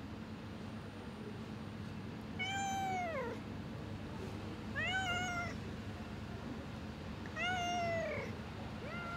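Cat meowing: three drawn-out meows a couple of seconds apart, each holding its pitch and then sliding down at the end, with a fourth starting at the very end.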